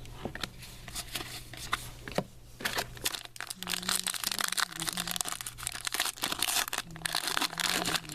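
Crinkling and tearing of a foil trading-card pack wrapper being opened and handled, sparse at first and then a dense crackle from about three seconds in.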